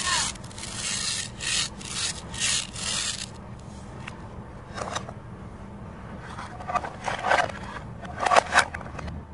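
Plastic toy food pieces rubbed and worked against each other by hand: about six rasping strokes at roughly two a second in the first three seconds, then lighter scattered clicks and scrapes of plastic on plastic.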